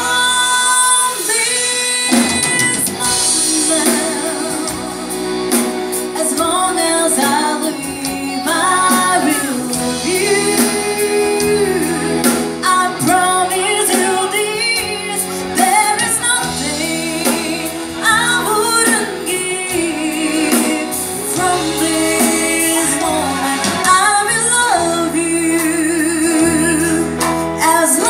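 Live band playing a song with a woman singing the lead vocal.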